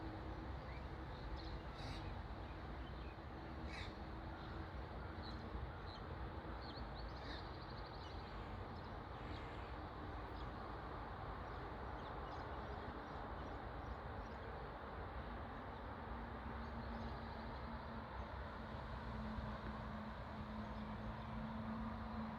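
Birds calling and chirping now and then over a steady low rumble of outdoor background noise.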